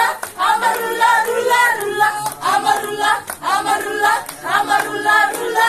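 A group of voices singing together as a choir, in phrases of several overlapping melodic lines.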